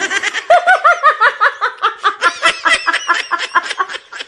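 A man and a woman laughing loudly together in quick, repeated ha-ha's, dying down a little towards the end.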